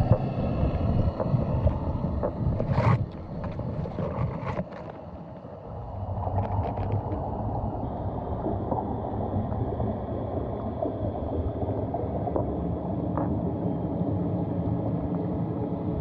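Underwater sound picked up by a GoPro on a swimming snapping turtle's shell: a dull, steady rumble of water against the camera housing, with a few sharp clicks and knocks in the first five seconds and a brief drop in level about five seconds in. A faint steady high whine comes in about halfway through.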